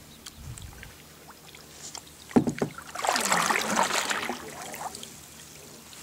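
Kayak paddling: a sharp knock about two seconds in, then a splashing rush of paddle blades through the water lasting a couple of seconds.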